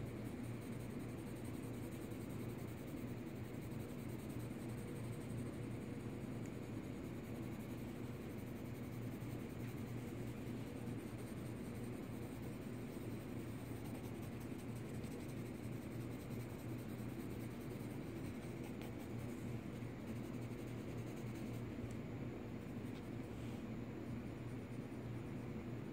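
Pencil lead scratching on sketchbook paper in continuous quick scribbling and shading strokes, over a low steady hum.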